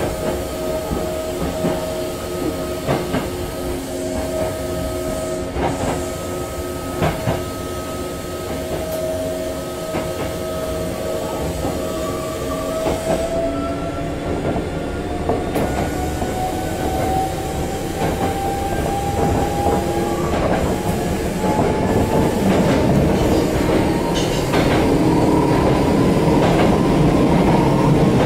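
Ex-Hankyu electric train heard from inside the car, its traction motor whine holding steady and then, from about halfway, rising in pitch as the train picks up speed. Wheel clicks over rail joints and running noise grow louder toward the end.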